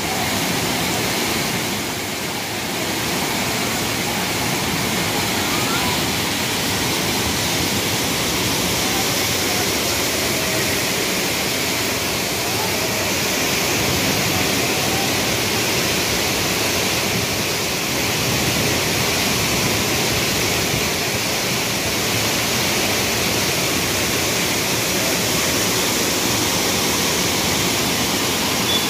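Muddy floodwater rushing through a concrete channel: a steady, loud, even rush of water that does not let up.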